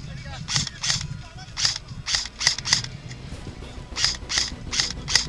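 Airsoft gun firing about ten single shots in short irregular groups, each a sharp, short pop.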